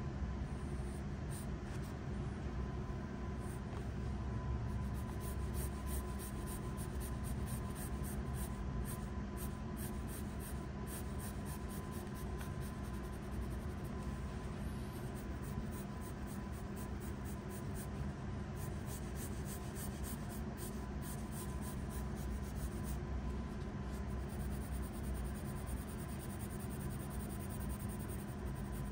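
Graphite pencil scratching across paper in runs of quick, repeated sketching and shading strokes, over a steady low hum.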